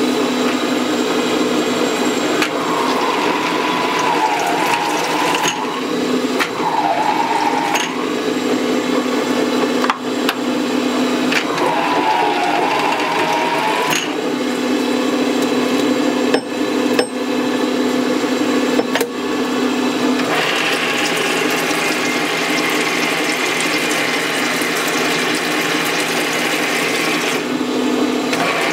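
Turret lathe running after about six months unused, with a steady motor hum throughout. A wavering squeal comes and goes three times in the first half, a few sharp knocks fall in the middle, and a rasping hiss joins the hum for most of the last third.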